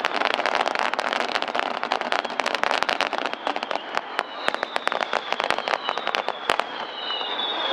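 Fireworks crackling: a dense, rapid crackle of many small sharp pops that thins out about six and a half seconds in. High whistles sound over the last few seconds.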